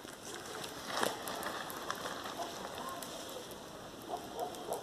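Fire crackling and hissing inside a mud-sealed earth oven, with scattered sharp pops over a steady hiss.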